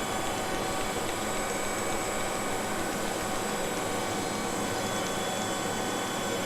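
Metal lathe running steadily with its spindle turning at about 394 RPM: an even mechanical hum with several steady tones from the drive.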